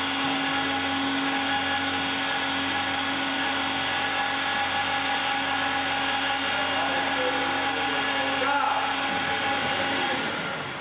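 Micronair AU500 rotary atomizers spinning on a spray-calibration stand: a steady motor-like whine with several held pitches over a rushing hiss of air and spray. The whine cuts out and the sound dies away near the end.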